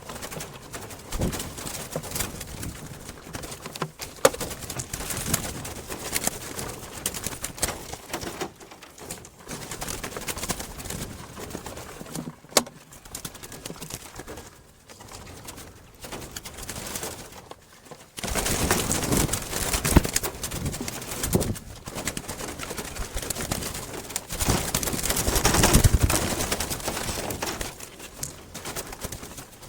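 Doves at a bird trap, with rustling and scattered clicks that grow louder and busier about two thirds of the way in.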